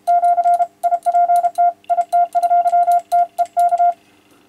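Morse code sidetone from the Yaesu FTDX-101MP's CW monitor: one steady beep keyed by the radio's electronic keyer from an iambic paddle into a run of dahs and dits, stopping near the end. The keyer is forming proper dashes as well as dots, the sign that it works once switched in.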